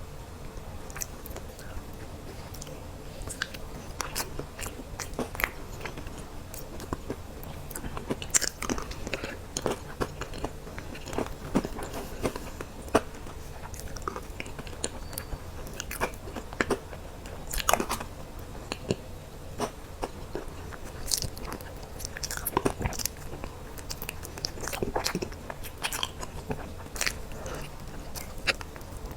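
A person biting and chewing dessert close to the microphone: scattered sharp mouth clicks and soft crunches, a few a second, over a faint steady hum.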